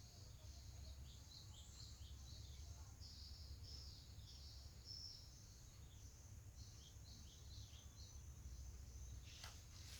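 Faint bird chirping, many short high falling chirps repeating, over a low steady hum, with a brief noise near the end.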